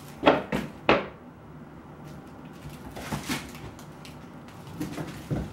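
A Bengal cat pouncing and landing on a hardwood floor among its toys: three sharp thumps and knocks within the first second, then a few lighter taps and scuffles.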